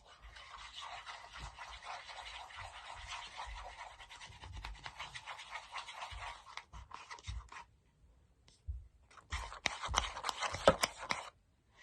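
Slime mixture of glue and shaving cream being stirred in a container, a continuous scratchy scraping and rubbing. It stops about seven and a half seconds in, then resumes for about two seconds near the end with a few sharper clicks.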